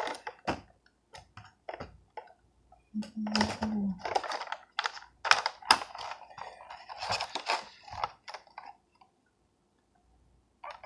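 Clear plastic toy blister packaging crinkling and crackling in irregular bursts as it is handled and turned over, stopping about nine seconds in.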